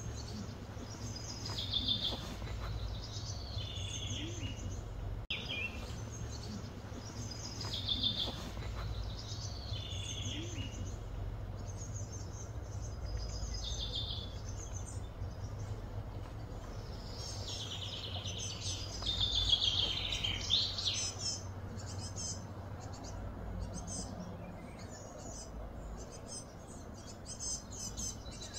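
Outdoor ambience with birds calling: a short falling call repeats every two to three seconds, with a busier run of calls about two-thirds of the way through, over a steady low background rumble.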